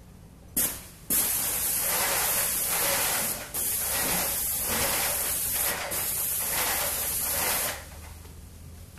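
Paint spray gun on an extension pole spraying a ceiling: a short hissing burst about half a second in, then one long steady hiss of about six and a half seconds that is briefly broken twice and cuts off near the end.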